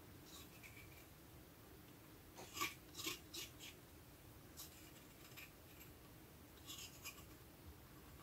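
Faint short scrapes of a silicone spatula against the inside of a small cup, scraping out the last of an oil and mustard salad dressing: a cluster of strokes a few seconds in, then a few more around the middle and near the end.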